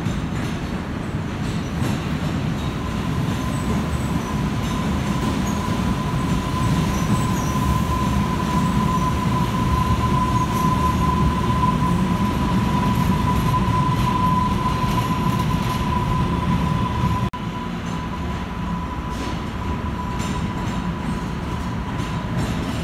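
MBTA Green Line light-rail train running through an underground station with a low rumble, its steel wheels squealing in one steady high tone from about three seconds in until just before the end.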